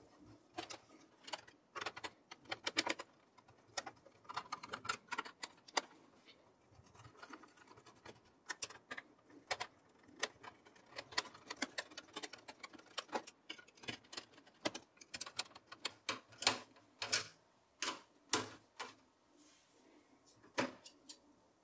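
Screwdriver undoing the CPU cooler's screws in a desktop PC case: irregular small metallic clicks and ticks of the driver tip and loosening screws, now and then in quick runs.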